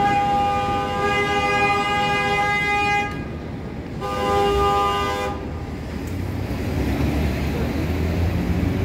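Vehicle horn held in a long, steady multi-tone blast of about three seconds, then sounded again for about a second and a half. After that comes a low rumble of street traffic.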